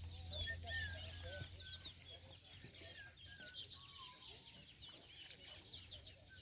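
Faint chorus of birds chirping and whistling, many short calls overlapping, over a steady low hum.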